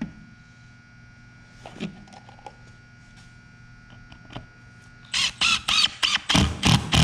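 Cordless impact driver driving a screw into a pine board. About five seconds in, its hammer mechanism starts a rapid clattering, ratcheting in a quick series of strokes for about two seconds. This is the tool's normal impact action, not the bit slipping in the screw head. A couple of small knocks come before it as the screw is set.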